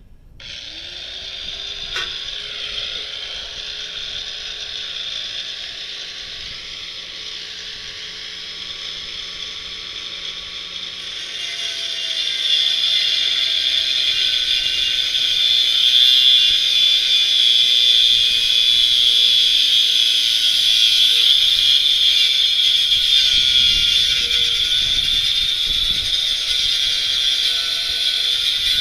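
An electric cutting tool spins up, then cuts through the bicycle's steel frame. Its motor whines steadily under a harsh, high grinding sound, which grows louder about twelve seconds in as the tool bites harder into the metal.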